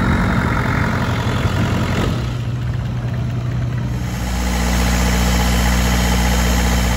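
Long-tail boat's inboard engine running steadily under way, a loud low drone mixed with the rush of water and wind. About four seconds in the engine note shifts lower and steadier.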